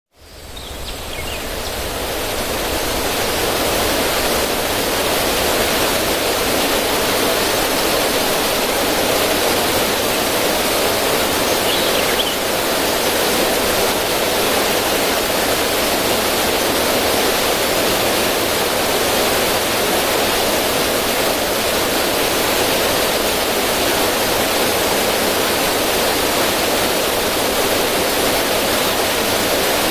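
River water rushing and splashing over rocks in a small cascade, a steady, even wash of noise that fades in over the first few seconds.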